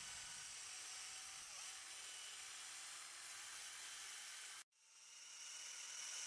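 Cordless drill with a long wood bit running steadily as it bores into a coconut palm's stem, heard faintly as a steady hiss with a thin whine. The sound cuts out abruptly about four and a half seconds in, then fades back up brighter and hissier.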